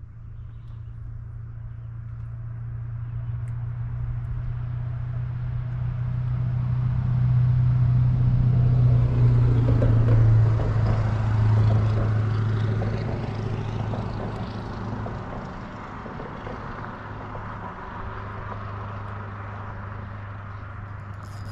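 An engine passing by: a steady deep hum that grows louder to a peak about ten seconds in, drops slightly in pitch, then fades but stays audible.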